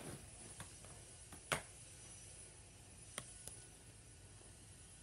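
Plastic Blu-ray case handled and snapped open: a sharp click about a second and a half in, with a few lighter clicks around it.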